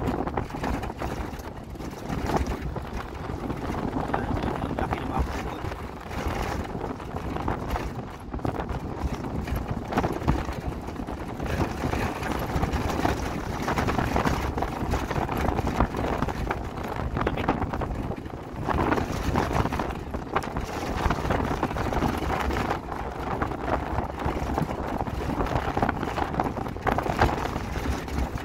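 Wind buffeting the microphone, rising and falling in gusts.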